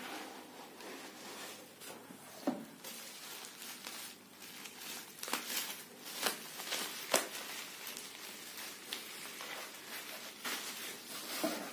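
Bubble-wrap and plastic packaging crinkling and rustling as it is handled and pulled off an object, together with a cardboard box being opened. Irregular rustles with sharp crackles and snaps scattered throughout.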